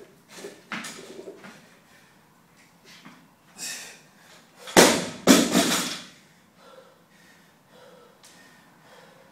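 An 80 kg loaded barbell is dropped from overhead and crashes onto the floor about five seconds in, with a second, lighter bang as it bounces. Before it come the lifter's sharp, forceful breaths during the clean and the jerk.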